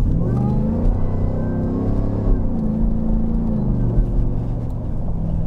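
Supercharged V8 of a Harley-Davidson F-150 accelerating hard, heard inside the cab. Its pitch climbs for about two seconds, drops at an upshift, then falls away as the throttle eases.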